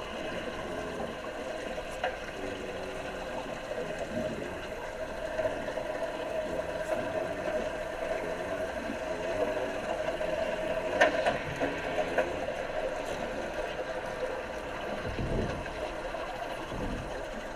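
Underwater noise in a diving tank: a steady hum with bubbling and gurgling, and a sharp click about eleven seconds in.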